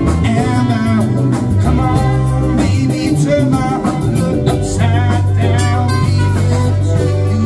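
Live band music: trumpet and saxophone playing over drums and bass, with a singer.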